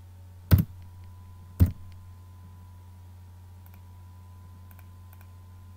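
Two sharp clicks from the computer being worked, about a second apart, followed by a few faint ticks, over a steady low electrical hum.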